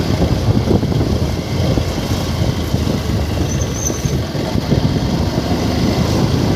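A 125 cc motorcycle being ridden at about 30 km/h: the engine running under steady throttle, heard together with wind on the microphone as a continuous low, fluttering rumble.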